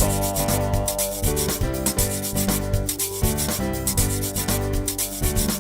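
Background music with a steady beat: held pitched notes over busy, regular percussion.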